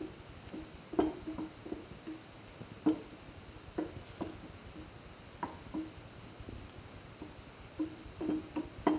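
A spatula knocking and scraping against a frying pan while stirring sliced shallots, ginger and garlic in oil, with irregular light knocks about once a second, the loudest about a second in and near the end.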